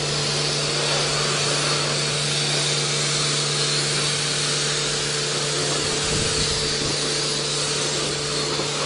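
Self-service car wash high-pressure washer running steadily: a constant pump hum under the hiss of the water jet.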